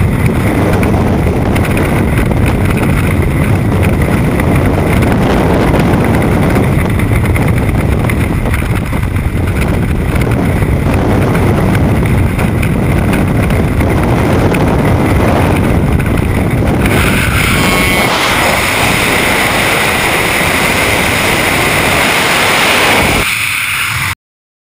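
Freefall wind rushing over a skydiver's body-worn camera microphone: loud and steady. About seventeen seconds in it turns thinner and hissier, with a faint steady tone, and it cuts off suddenly just before the end.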